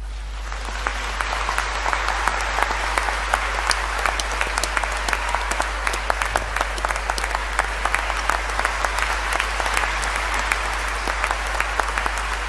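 A large congregation applauding: many hands clapping in a dense, steady patter that swells in over the first second or so.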